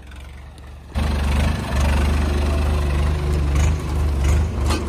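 Farm tractor's diesel engine running close by, with a deep, steady low note. It is faint at first and comes in loud abruptly about a second in.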